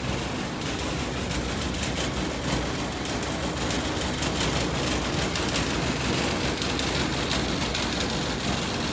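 A laundry machine running: a steady, even mechanical whir and rush that does not change. The owner does not know why the machine makes this noise.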